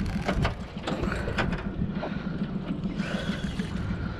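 Daiwa Certate LT 3000 spinning reel being cranked by hand, its gears and handle giving irregular clicks and short whirring strokes, over a steady low rumble.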